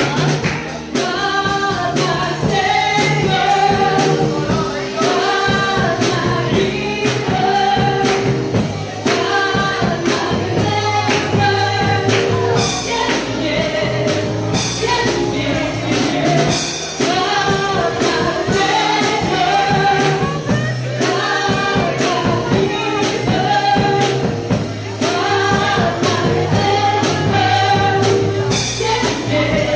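Live gospel praise music: voices singing together over a band with a steady drum beat.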